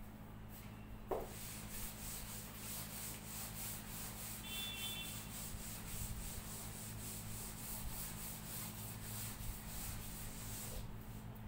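Blackboard eraser scrubbed briskly back and forth across a chalkboard, wiping off chalk writing in a long run of quick, regular strokes. The strokes start about a second in, just after a light knock, and stop shortly before the end.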